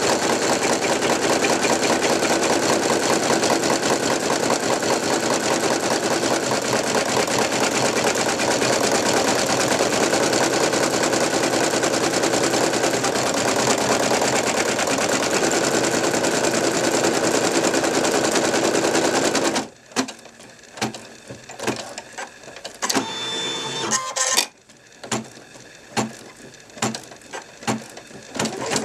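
Brother NV2600 computerized embroidery machine stitching rapidly and steadily, then stopping about two-thirds of the way through. Scattered clicks and a short whir of the mechanism follow as the hoop moves to a new part of the design, and stitching starts again near the end.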